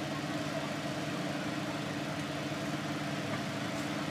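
Bus engine idling steadily, a constant hum heard from inside the bus.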